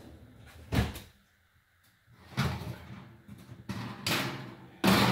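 An oven door and a metal baking pan being handled: a sharp knock about a second in, then several more knocks and clatters, the loudest near the end.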